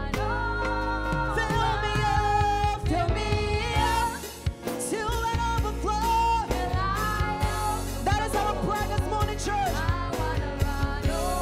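Worship song: singing over a band with a steady beat and a strong bass. The music drops away briefly about four seconds in, then comes back.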